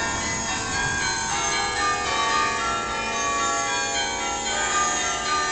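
Church bells ringing: many overlapping ringing tones, with the high whine of an Esky Big Lama electric coaxial RC helicopter's motors and rotors rising in pitch about three seconds in.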